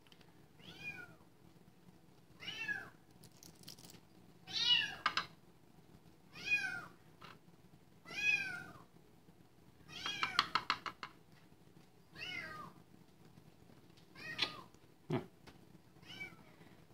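A young kitten, about three or four weeks old, fussing with repeated high meows: about nine cries, one every couple of seconds, each rising and then falling in pitch.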